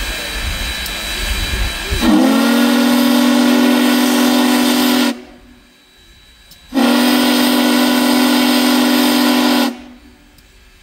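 Union Pacific Big Boy #4014's steam whistle sounding two long blasts of about three seconds each. The pitch slides up briefly at the start of the first, and each blast cuts off sharply. Two long blasts is the signal to release brakes and proceed.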